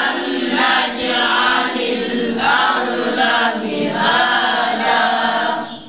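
Several voices chanting together in long, held phrases with brief breaks between them. The chanting stops shortly before the end.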